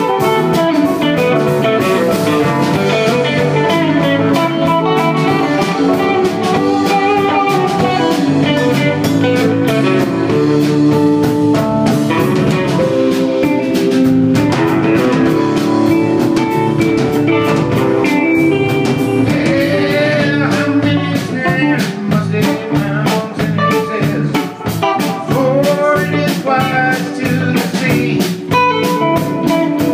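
Live rock band playing an instrumental passage: electric guitar lines over keyboard, bass and a steady drum-kit beat.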